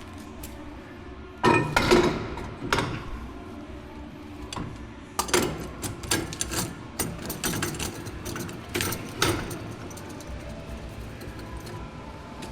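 Scattered metal clanks and clinks as wheel-balancer fittings are handled and fitted, about ten knocks, the loudest coming about two seconds in and about five seconds in.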